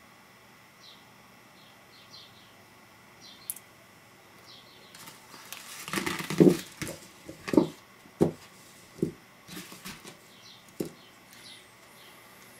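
A small paper envelope being crumpled and folded by hand on a tabletop: rustling and crackling starts about five seconds in, with about six soft thumps as it is pressed flat. Faint short high chirps can be heard throughout.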